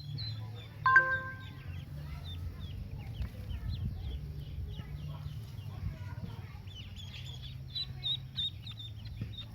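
Newly hatched Pekin ducklings peeping, many short high falling peeps in quick succession. A louder, brief pitched call stands out about a second in, over a steady low hum.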